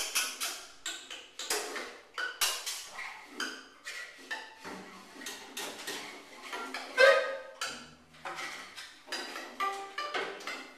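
Free-improvised music from a quartet of drums, mandolin, baritone sax and double bass, played as sparse clicks, taps and metallic clatter with brief short notes between them. One louder hit comes about seven seconds in.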